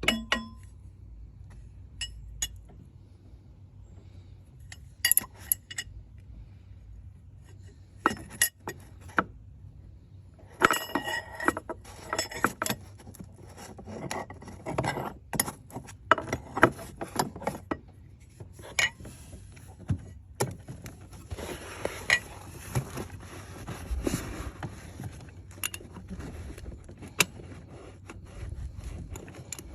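Metal hand tools clinking and clanking as wrenches are handled and fitted, in scattered sharp clinks that come thick and rattling through the middle stretch.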